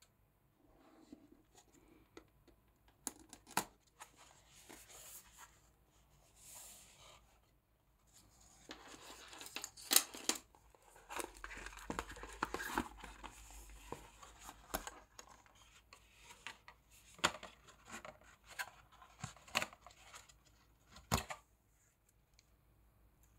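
Unboxing handling of a Peak Design Slide Lite nylon camera strap and its cardboard box: the packaging rustling and scraping as the strap is slid out and handled. Scattered sharp clicks and knocks run through it, most likely the strap's hardware and the box being handled.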